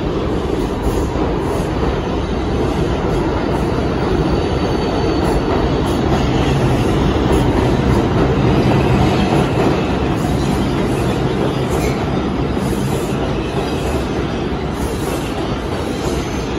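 New York City Subway R142A train pulling out of the station alongside the platform: a continuous rumble of steel wheels on rail with clacking over the rail joints. The rumble eases slightly near the end as the last car moves into the tunnel.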